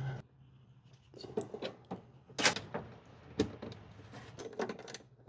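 Scattered light clicks and knocks of hands and tools working wires into inverter terminals, with two sharper knocks about two and a half and three and a half seconds in.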